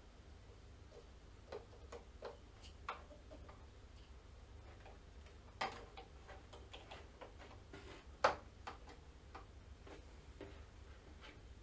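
Irregular light clicks and taps of small parts being handled while an M.2 NVMe SSD is fitted into a PS5's expansion slot, over a steady low hum. The loudest knock comes about eight seconds in.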